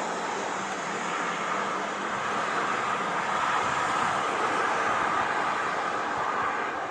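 Jet engines of a Boeing KC-767 tanker running as it rolls along the ground: a steady rushing whine that grows a little louder around the middle, then eases.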